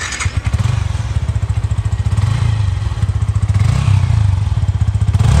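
Motorcycle engine running loudly with a fast, even pulse, steady in pitch.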